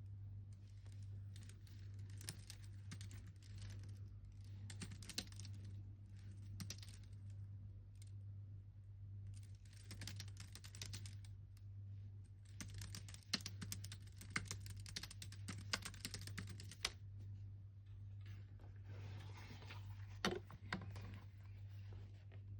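Typing on a computer keyboard in bursts of a few seconds each, with short pauses between, over a steady low hum.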